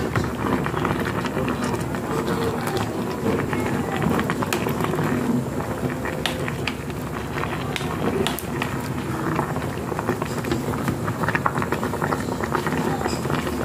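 Wooden spatula stirring and turning chunks of young jackfruit in a pan, with many small clatters and scrapes over a steady background noise.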